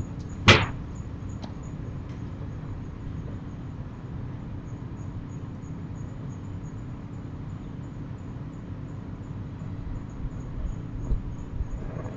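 A sharp wooden clack about half a second in, over a steady low hum, with a few faint low thumps near the end. The uploader takes these for the noise of a sliding shoji screen.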